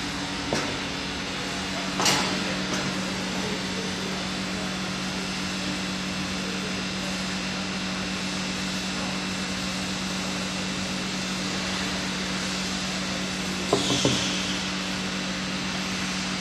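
Sungreat optical colour sorter running while it sorts plastic flakes: a steady machine hum over an even hiss. A sharp knock comes about two seconds in, and a short cluster of clatters with a brief high hiss about fourteen seconds in.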